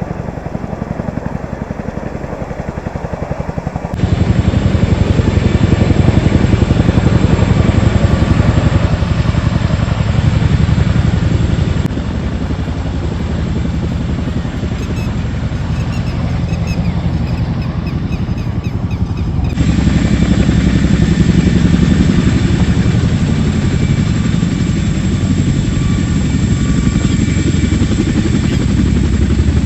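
Helicopter flying low overhead, its rotor beating rapidly and steadily. The loudness jumps abruptly about four seconds in, dips about twelve seconds in, and rises again a little before two-thirds through.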